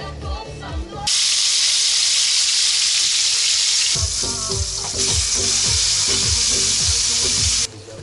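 Food sizzling loudly in a frying pan, a steady hiss that cuts in suddenly about a second in and stops sharply near the end, with background music under it.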